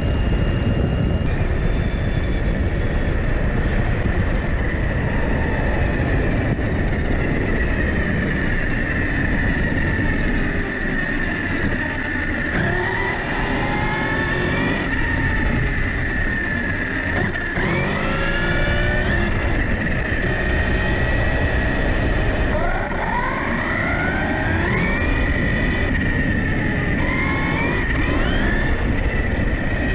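Arrma Kraton 6S RC car's brushless motor and drivetrain whining, its pitch sweeping up and down several times as it accelerates and slows, over a steady rush of wind and tyre noise on the road surface.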